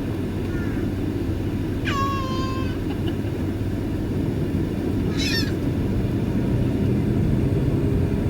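Steady low rumble of airliner jet engines running at taxi. About two and five seconds in, two short high-pitched animal calls sound over it, the second sharper and wavering.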